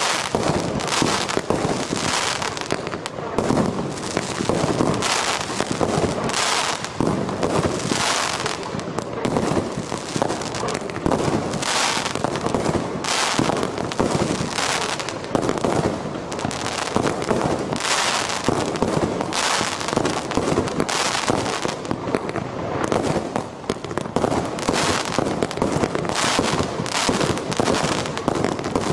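Apocalypse 61-shot fireworks cake firing in a rapid, unbroken string of shots and bursts, several a second, overlapping one another.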